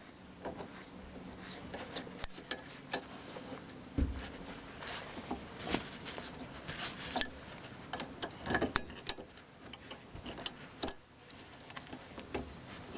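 Irregular light clicks and metallic taps as a screwdriver works a bent-back sheet-metal tab on a cable bracket, with a single dull knock about four seconds in.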